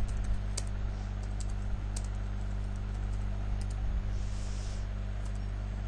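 Computer keyboard typing: scattered, irregular key clicks over a steady low electrical hum.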